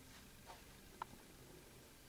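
Near silence: room tone with two faint short clicks.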